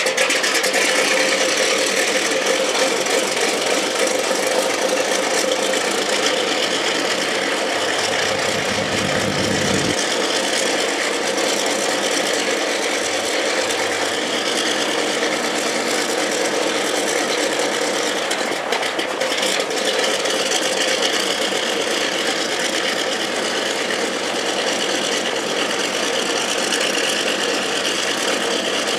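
B-29 Superfortress's Wright R-3350 radial engine running steadily at idle just after start-up.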